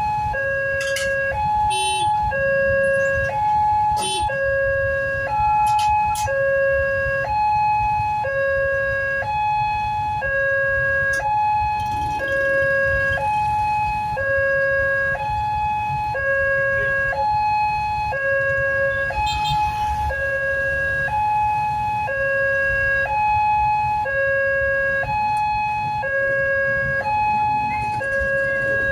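Railway level-crossing warning siren from the loudspeaker horn on the crossing post, playing a two-tone alternating signal, high and low about half a second each and repeating steadily over a low background rumble. It signals that a train is approaching and the crossing is closed.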